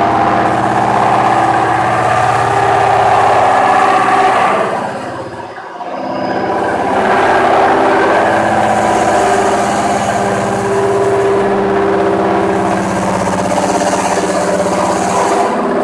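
Four-head automatic stone calibrating machine running, its electric motors giving a steady mechanical hum with several held tones. The sound dips briefly about five seconds in, then comes back at full level.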